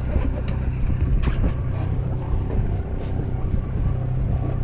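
Party boat's engine running steadily, a low hum, with a few light knocks on deck.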